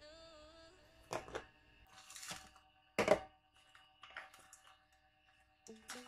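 Plastic food containers and a thin plastic bag handled on a stone countertop: a few sharp clicks and knocks, the loudest about three seconds in, with crinkling of the bag.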